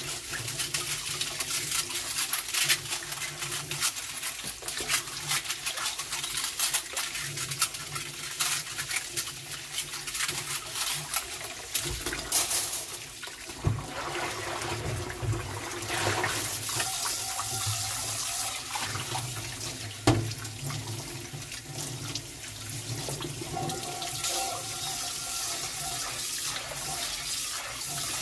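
Kitchen tap running into a stainless steel sink while dishes are rinsed under it: steady splashing water, with light clinks of metal chopsticks and pot in the first half and one sharp knock about two-thirds of the way through.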